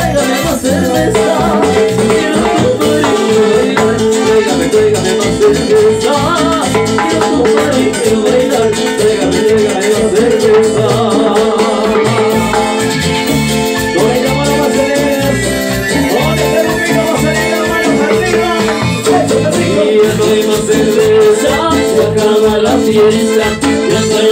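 Live Latin dance band playing, with singers over timbales and a steady beat.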